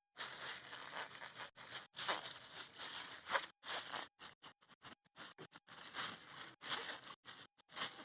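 Plastic bag of sawdust substrate crinkling and rustling as it is handled, in irregular stretches with short gaps between them.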